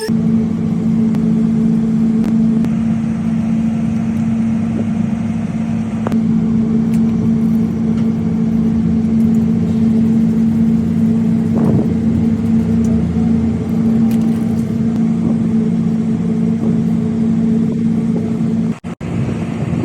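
A machine running with a loud, steady, pitched hum, which cuts out briefly about a second before the end.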